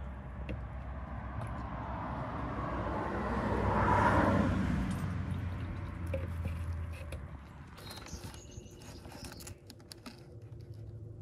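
Old brake fluid poured from a plastic catch cup into a plastic waste jug: a splashing pour that swells to its loudest about four seconds in, then tails off. A few light plastic clicks and knocks follow near the end.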